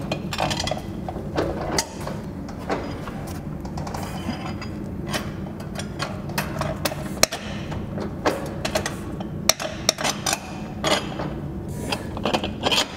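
Metal clicking and clinking of lug nuts and wheel hardware being worked by hand at a compact tractor's rear wheel hub, in quick irregular clicks.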